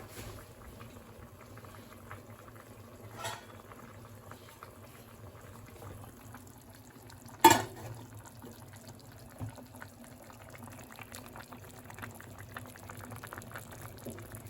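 Liquid bubbling and fizzing with fine crackles over a steady low hum, broken by a sharp knock about halfway through and a softer one a few seconds in.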